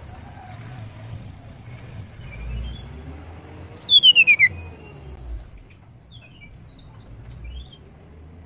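A blue flycatcher (tledekan) singing. A short run of rising notes leads into a loud, rapidly trilled whistle that falls steeply in pitch about four seconds in, followed by a few scattered short high notes.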